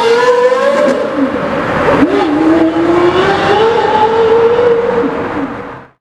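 Porsche Carrera GT's 5.7-litre V10 at full throttle, pulling away hard. The rising engine pitch drops at an upshift about two seconds in, then climbs again. The sound fades and cuts off just before the end.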